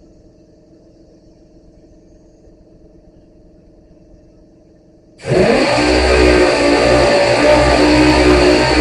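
A faint steady low hum, then about five seconds in, loud guitar-driven rock music starts suddenly and carries on.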